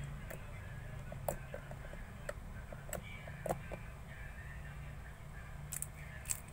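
Slime being played with: scattered soft clicks and pops, about seven in all, over a steady low background hum.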